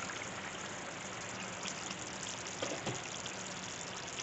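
Thick pea and paneer curry simmering in an open frying pan, bubbling steadily with a few small pops.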